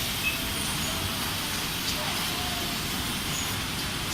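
Steady running noise of an automatic CNC glass-bottle screen printing machine, an even mechanical hum with a few faint clicks and short tones.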